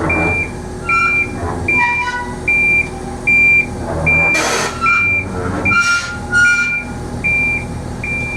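Crawler crane's steel tracks squealing and scraping on the concrete as the crane base is turned, over a machine's warning alarm beeping steadily about three times every two seconds.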